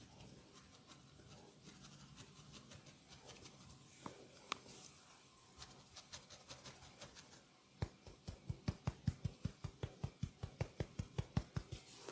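Hands rubbing and scratching lightly over skin and hair, with a few soft clicks, then from a little before the end's last third a fast, even series of low thumps, about five a second: hands chopping and tapping on the body in percussive massage.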